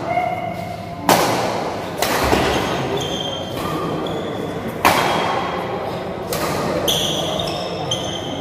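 Badminton rackets striking the shuttlecock in a rally: three sharp hits about a second in, at two seconds and near five seconds, each echoing in the hall. Between the hits come short high squeaks of court shoes on the floor, most near the end.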